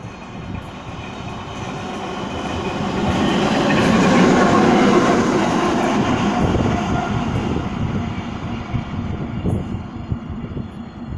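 ChME3 shunting diesel locomotive passing close by: its six-cylinder diesel engine and its wheels on the rails grow louder to a peak about four to five seconds in, then fade as it moves away.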